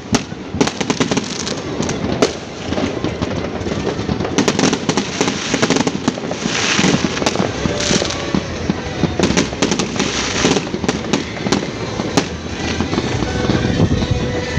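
A New Year fireworks display going off: dense overlapping bangs and crackles in quick succession, with a few longer hissing, crackling bursts.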